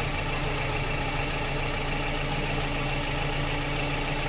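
Toyota Corolla EE100's carbureted 2E four-cylinder engine idling steadily while its ignition timing and vacuum are being checked.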